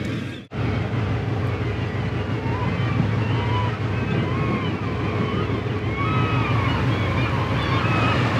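Steady low drone of the MV Inside Passage's engine, with wind and water rushing past the boat. The sound drops out for an instant about half a second in.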